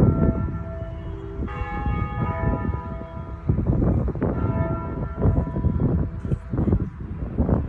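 Church bells ringing: several bells struck one after another, their tones overlapping, with fresh strikes coming in about a second and a half in and several times after. A loud low noise rises and falls underneath.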